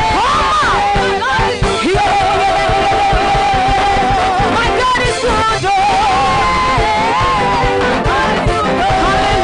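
Live gospel praise singing by a group of women vocalists with instrumental accompaniment, long notes held with a wavering vibrato.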